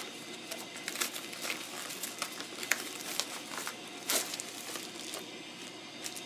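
Paper and plastic packaging rustling and crinkling as hands open a package, with scattered small crackles. Two louder crackles come a little under three seconds in and about four seconds in.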